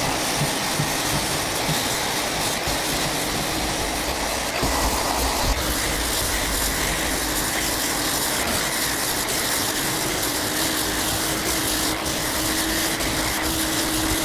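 Festool Rotex random-orbital sander in its aggressive, gear-driven mode, running steadily as it cuts the epoxy fill coat over fiberglass on a wooden kayak hull with 60-grit paper. A dust extractor hums along with it through the hose.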